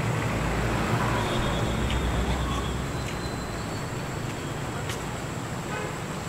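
Road traffic noise: a steady rumble and hiss of passing vehicles, with a couple of brief thin high tones about a second and three seconds in.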